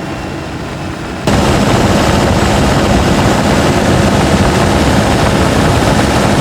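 Steady rumble of a turbocharged pickup truck on the move: engine, road and wind noise. It jumps suddenly much louder about a second in and then holds steady.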